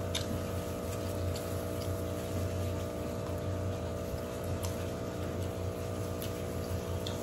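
Steady low machine hum, with a few faint clicks and rustles from eating rice and meat with plastic-gloved hands.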